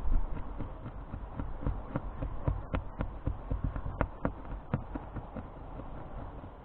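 A blade scraping cured windscreen-repair resin off the glass, heard as a fast, uneven run of short scrapes and clicks, several a second.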